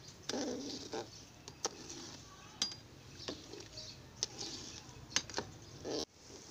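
Metal ladle stirring tamarind and dried-plum water in an aluminium karahi, clinking and scraping against the pan's side at an irregular pace of about one clink a second.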